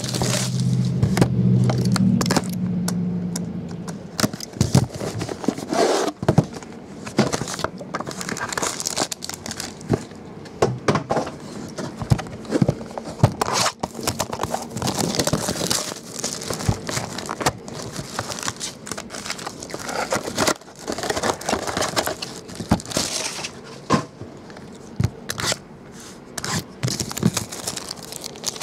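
Plastic shrink wrap being torn and crinkled off sealed trading-card boxes, with irregular crackles, scrapes and small knocks as the cardboard boxes are handled.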